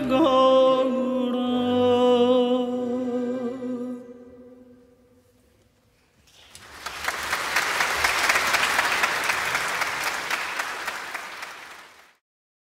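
A male singer and orchestra hold the song's closing note, which fades out about four seconds in. After a second of silence an audience applauds, and the applause cuts off suddenly near the end.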